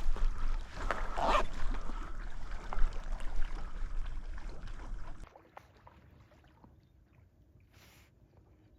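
A hunting dog whining and whimpering amid rustling and knocks. The noise drops away suddenly about five seconds in, leaving only faint sounds.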